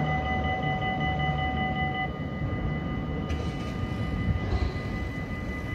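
Electric tram pulling away along the track, its traction drive giving several steady high whines over a low rumble; one whine cuts off about two seconds in and another just after three seconds.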